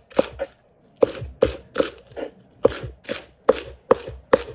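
A kitchen knife chopping Shanghai bok choy finely on a cutting board: about ten even chops, two or three a second, with a short pause near the start.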